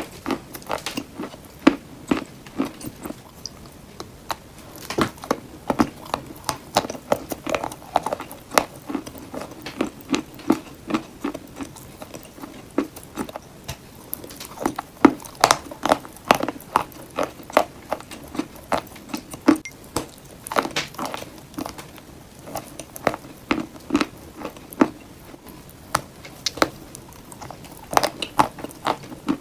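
Pieces of bowl-shaped chalk being bitten and chewed close to the microphone: sharp, irregular crunches, several a second, with quieter chewing between them.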